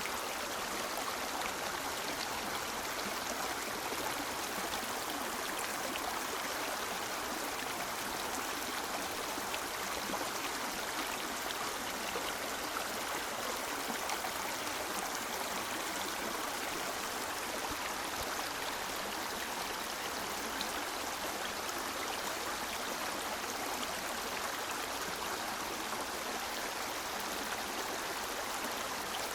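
A river flowing over stones, a steady rushing and babbling of water with no change.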